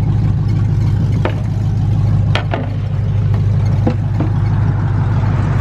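1992 Camaro engine idling steadily, with several short squeaks over it that the owner takes for a squeaking pulley.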